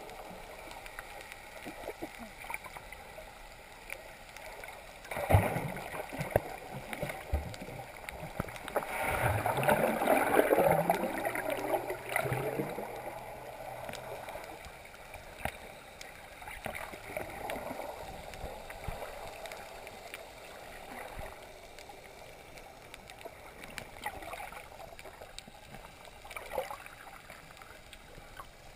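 Muffled underwater sound picked up by a camera in a waterproof housing: a steady wash of water noise with scattered small clicks, a knock about five seconds in, and a louder swell of water noise from about nine to thirteen seconds in.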